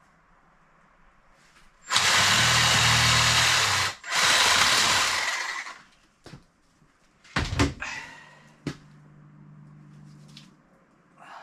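Handheld power saw cutting through a goat's leg bone, run in two bursts of about two seconds each, followed by a few sharp knocks.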